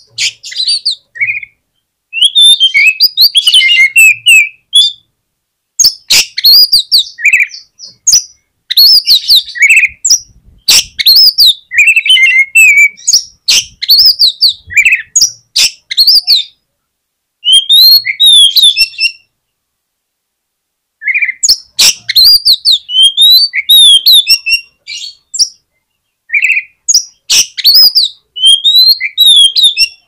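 Oriental magpie-robin singing loud, varied phrases of high whistles, chirps and quick up-and-down glides, in bursts of a few seconds broken by short pauses, with a longer pause about two-thirds of the way through.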